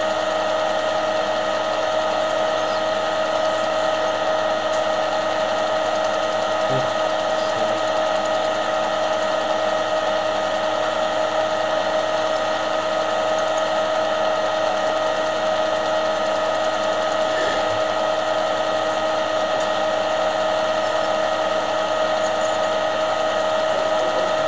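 Film projector running: a steady mechanical whirring with a constant high whine that does not change.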